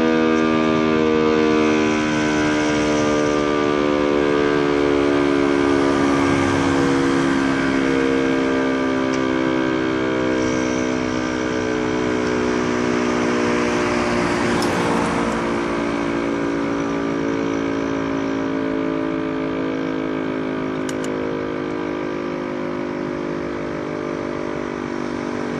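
DS 977 electric motor siren winding down at the end of its test alarm, its several-note wail sliding slowly lower in pitch and fading. A passing vehicle swells up about halfway through.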